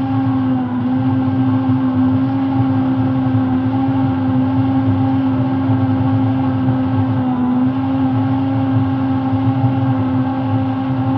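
Electric hand-held immersion blender running at a steady pitch with a rough low rumble, churning batter in a plastic measuring jug. Its pitch dips briefly twice as the blade meets the batter, and it winds down right at the end as it is switched off.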